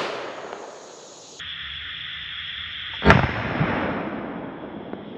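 A single 20-gauge shotgun shot about three seconds in, echoing off through the woods for about a second, fired at a squirrel on a log. Steady insect buzz runs underneath, and at the start the echo of a shot fired just before is still fading.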